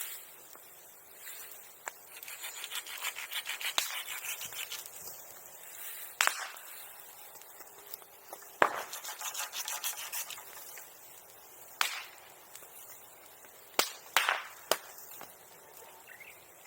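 Hand saw rasping through wood in two runs of quick strokes, with sharp pops and cracks from burning wood in between.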